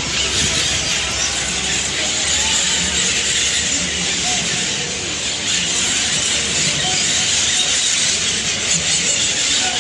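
A large flock of parakeets calling in the treetops: a dense, high chatter of countless overlapping calls that keeps up without a break.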